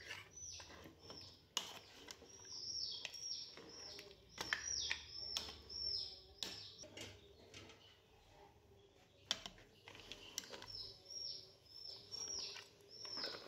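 A bird chirping in quick runs of short down-slurred notes, in two bouts, with a few sharp clinks of a steel ladle against the cooking pot as the curry is stirred.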